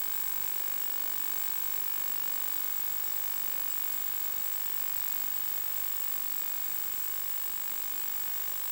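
Steady static hiss with a thin, high steady whine running through it: the empty audio channel of an analog FPV video link, with no live sound on it.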